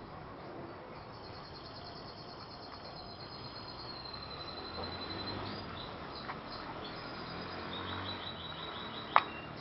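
Small birds chirping in quick high trills, one run early and another near the end, over a steady outdoor hiss. A single sharp click comes just before the end.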